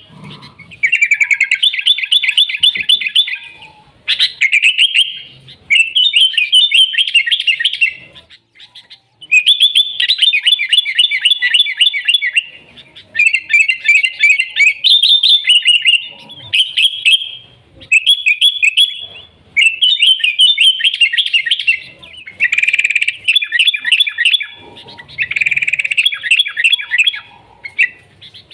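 Sooty-headed bulbul (kutilang) in full song: rapid chattering, warbling phrases of one to three seconds, repeated one after another with short pauses between.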